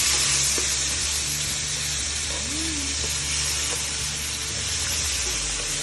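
Minced garlic, onion and tomato sizzling in hot vegetable oil in a frying pan, a steady frying hiss.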